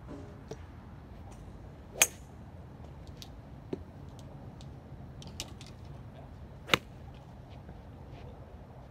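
Two sharp cracks of a golf club striking a ball on a driving range, about five seconds apart, with a few fainter clicks between them.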